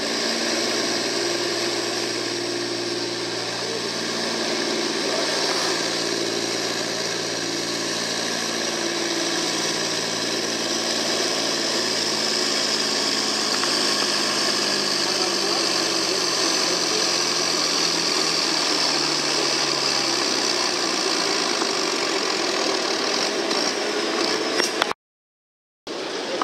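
John Deere farm tractor's engine pulling a weight-transfer sled under full load, with a steady engine note that sags lower in pitch as the pull goes on, over a constant high hiss. The sound drops out for about a second near the end.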